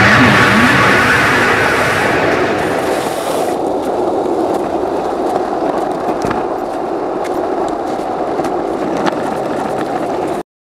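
Skateboard wheels rolling on rough pavement: a steady rumble with scattered small clicks and ticks. The sound cuts off abruptly near the end.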